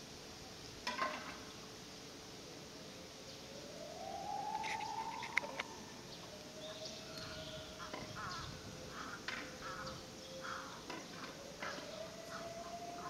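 A siren wailing: its pitch rises slowly about four seconds in, holds level, then climbs again near the end. Scattered short clicks and rustles sound over it, the sharpest about a second in and about five seconds in.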